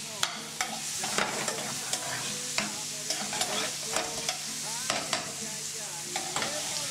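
Chopped vegetables sizzling in a metal skillet on a gas flame as vinegar cooks off, while a metal spoon stirs them, scraping and clicking against the pan at irregular moments.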